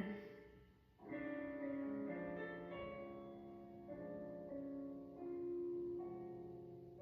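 Soft instrumental background music of slow, held keyboard chords. The first chord fades away and a new one starts about a second in.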